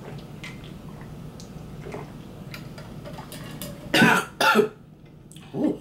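A woman coughing in three short loud bursts near the end, after a sip of drink went down the wrong pipe.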